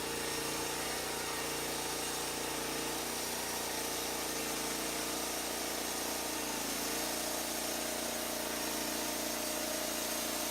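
Portable band sawmill's engine running steadily, its tone shifting slightly about six and a half seconds in.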